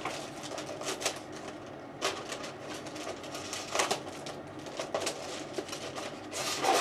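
Scattered clicks, knocks and crackles of packaging being handled and pulled open while an airsoft rifle is unboxed.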